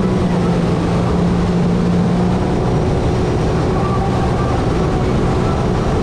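Sea-Doo personal watercraft's engine running steadily at cruising speed, with a constant low hum and the rush of water and air beneath it. The engine note dips slightly about two and a half seconds in.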